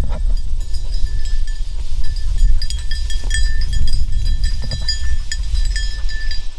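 Wind rumbling on the microphone in open grassland, with a small bell ringing on and off above it.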